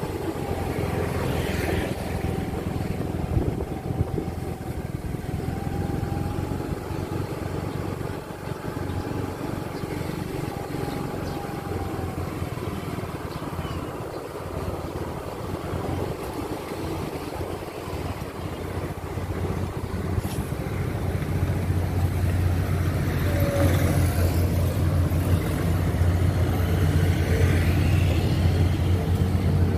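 Street traffic: motorcycles and cars running past with a continuous low engine rumble, getting louder over the last several seconds.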